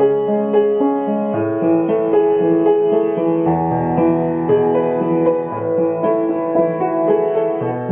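Background piano music: a gentle melody over sustained bass notes.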